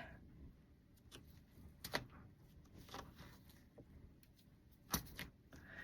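Faint, sparse sticky clicks and pops of a soft cloud slime being kneaded and stretched by hand, with the clearest pops about two seconds in and near five seconds.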